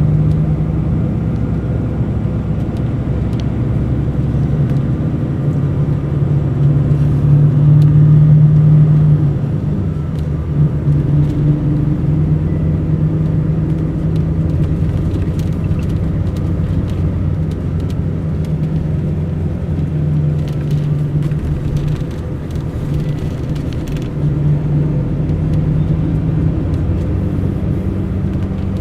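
Diesel engine of a Mercedes-Benz O500 RSD BlueTec5 coach running under way as a steady drone. It pulls louder for a couple of seconds about a quarter of the way in, then eases off, and swells again twice later on.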